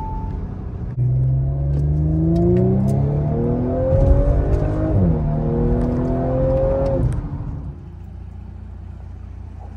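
2019 Audi S4's turbocharged 3.0-litre V6 heard from inside the cabin under hard acceleration, its pitch climbing. About five seconds in the pitch drops at an upshift, then climbs again. Near the end it falls away to a low steady hum.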